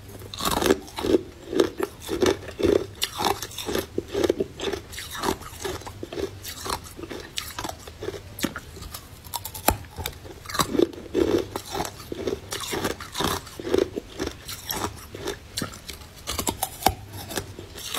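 Close-up crunching and chewing of green colored ice: sharp cracks as the ice is bitten, then crunching at about two chews a second.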